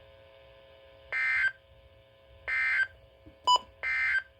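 Three short bursts of NOAA Weather Radio SAME data tones: the Emergency Alert System end-of-message code that closes the weekly test. Each burst is under half a second, and they come about a second apart, with a brief, louder beep just before the third. A faint steady hum runs underneath.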